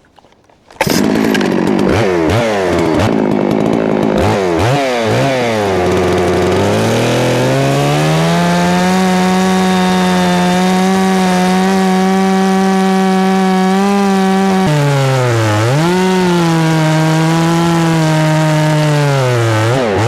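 Large gas chainsaw cutting through a thick pecan log, coming in loud about a second in. It revs up and down for several seconds, then settles at a steady pitch under load in the cut. Near the end it briefly bogs down and recovers, then drops in pitch.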